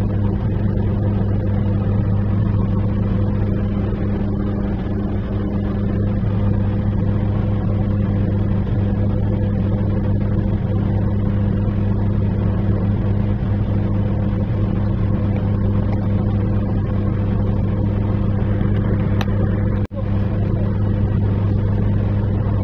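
A mobile crane's engine running steadily, heard from inside the operator's cab: an even, low hum that drops out for an instant near the end.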